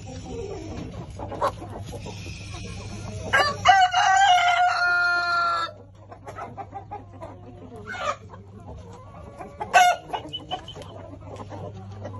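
A Brahma rooster crows once, about three seconds in, a long held call that breaks off suddenly, with shorter clucking calls from the flock before and after it.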